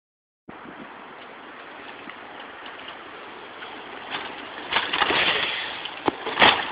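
Outdoor hiss and rumble of a bicycle being ridden over asphalt, growing louder about two-thirds of the way in, with a few sharp knocks near the end.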